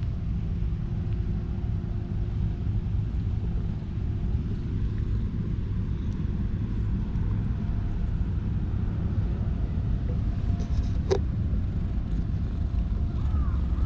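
Steady low outdoor rumble, with one short sharp click about three-quarters of the way in and a crow cawing a few times near the end.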